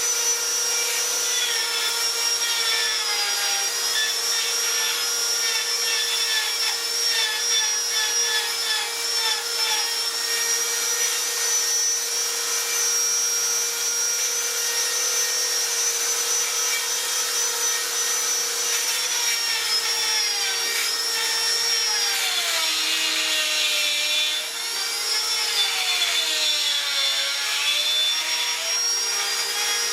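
Electric power tool running continuously against wood. Its motor pitch dips and recovers several times in the second half as it is loaded.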